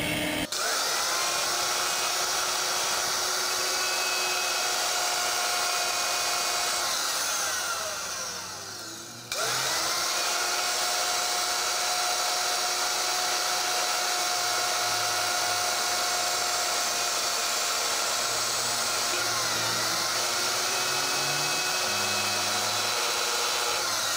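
Angle grinder with a thin cutting disc grinding down a small gear that spins in a cordless drill's chuck, used as a makeshift lathe. Both motors run with a steady grinding noise. The noise fades about eight seconds in and comes back abruptly about a second later.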